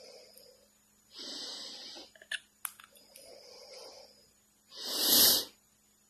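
Breathy hissing puffs, one louder puff about a second in, a few small clicks, then one short, loud sneeze-like burst near the end.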